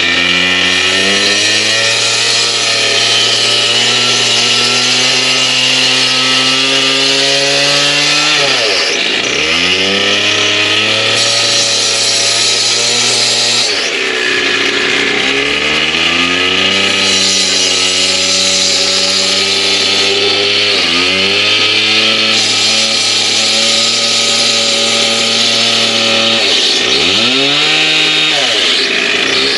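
Concrete saw running at high speed and cutting concrete pavers, a steady motor whine over a gritty grinding hiss. Its speed drops sharply and picks back up about four times.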